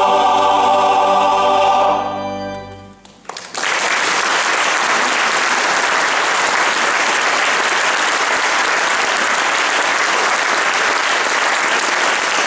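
Large combined male voice choir holding a final sung chord, which fades away over about a second. The audience then breaks into steady applause.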